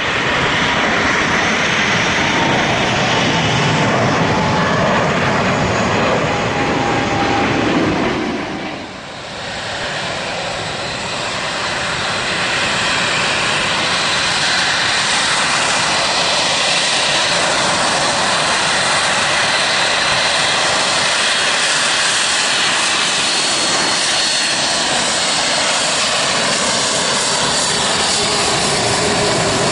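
Jet airliner's engines at takeoff thrust as it climbs away, with a tone slowly falling in pitch. After about nine seconds this gives way to an Air France Airbus A380's four GP7200 turbofans running at taxi power as it rolls past close by, a steady rush with a high whine.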